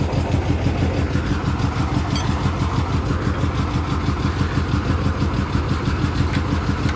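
Engine of a borewell drilling rig running steadily at idle, with an even pulsing beat.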